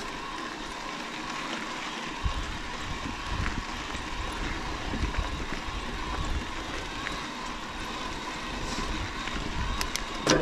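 Mountain bike rolling down a rocky dirt road: steady tyre noise on gravel with small rattles and clicks from the bike, a low rumble coming in about two seconds in, and a sharp knock near the end.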